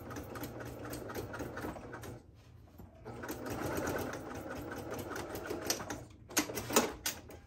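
Electric sewing machine stitching rapidly, set to a stitch length of 3 and top-stitching through the layered fabric of a basket's top edge. It runs in spurts, pausing briefly about two seconds in and again around six seconds, with a few short, louder bursts near the end.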